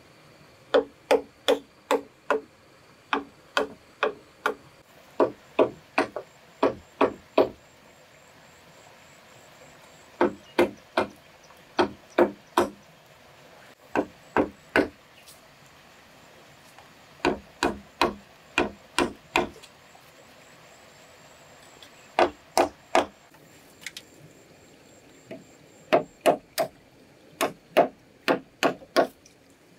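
Repeated blows of a hand tool on wood, coming in quick runs of three to eight strikes, about three a second, with pauses of a second or more between the runs.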